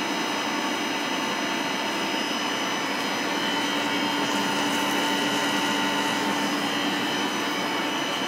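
Vertical milling machine running steadily with an end mill cutting a pass through a metal block: a constant whine from the spindle and cutter over an even hiss from a nozzle blowing coolant at the cutter.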